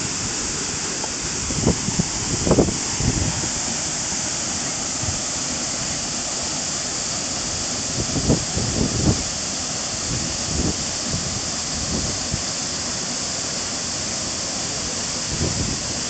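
Waterfall pouring steadily, a dense even hiss of falling water. A few brief low rumbles rise over it about two seconds, eight seconds and fifteen seconds in.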